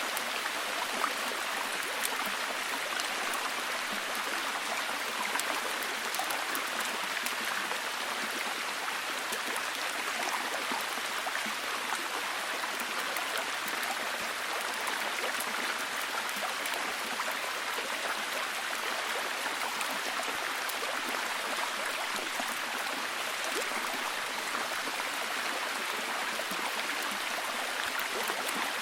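Steady heavy rain: a dense, even hiss of falling water with many small drop ticks.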